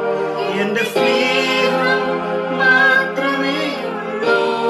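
Music: a man singing a worship song over a steady held accompaniment. The sung line comes in about a second in and drops out shortly before the end, while the accompaniment carries on.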